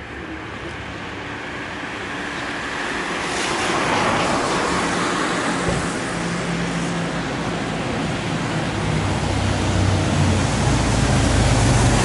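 Street traffic noise: a steady rushing that grows louder, with a low engine hum coming in near the end.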